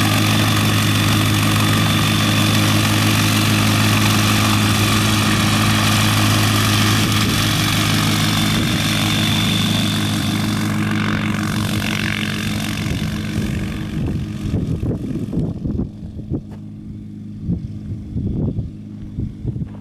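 Pipistrel Sinus motorglider's Rotax 912 four-cylinder engine and propeller running steadily at taxi power. The sound fades from about halfway as the aircraft taxis away, leaving gusty low rumbles near the end.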